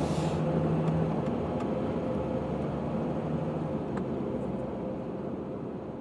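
Car driving on a paved road, heard from inside the cabin: a steady hum of engine and tyre noise. It slowly gets quieter toward the end.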